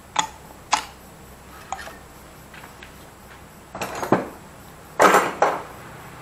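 Metal clinks and clatter from engine parts and hand tools being handled. There are a few light clinks in the first two seconds as the cylinder is worked up off the studs of a Honda single-cylinder motorcycle engine, then louder clattering about four and five seconds in.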